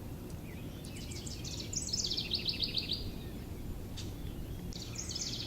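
A songbird singing twice, each song a quick run of high repeated notes that drops in pitch partway through, over a steady low background rumble.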